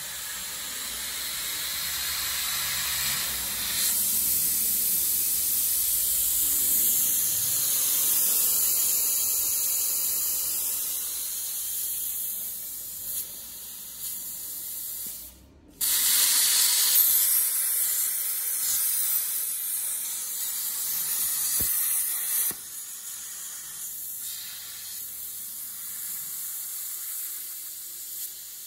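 CNC plasma torch cutting through 26 mm steel plate: a loud, steady hiss of the cutting jet. The hiss drops out for a moment about halfway through, then starts again at full strength.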